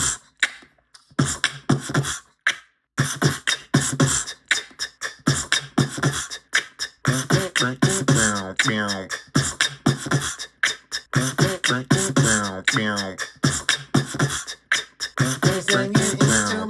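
A man beatboxing: rapid sharp mouth-percussion clicks and hisses, joined from about seven seconds in by pitched vocal tones that bend up and down. It is recorded through the iPhone 16's built-in microphone as a sound test of its audio processing.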